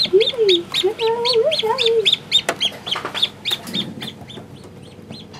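Newly hatched chicks peeping: a fast, even run of short high peeps, about five a second, fading out near the end. A low wavering voice-like sound runs under the first two seconds, and there is one sharp knock about halfway.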